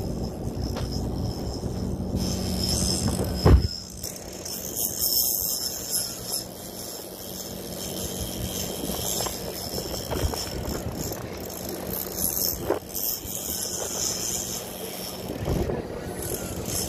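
Boat engine running steadily, with wind and sea noise, on a charter boat shark fishing. A single loud knock comes about three and a half seconds in, and there are smaller knocks later.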